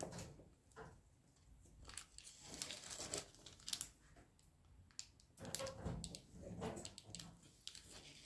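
Faint crinkling and scraping of a knife cutting into set apple fruit paste, in short irregular strokes, loudest near the start and again about two-thirds of the way in.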